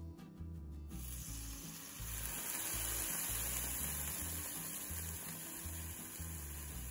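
A pineapple ring sizzling as it fries in hot oil in a cast-iron skillet. The sizzle starts suddenly about a second in and gets louder about two seconds in, over background music with a low bass line.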